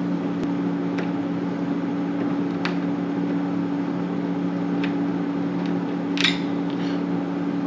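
Steady low hum with a few light clicks and a short metallic scrape about six seconds in: a hand tool working a refrigerator door-hinge screw loose.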